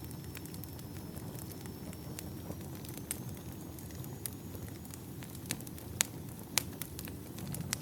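Wood campfire burning: a steady low rumble of the flames with scattered sharp crackles and pops from the burning logs, two louder pops near the end.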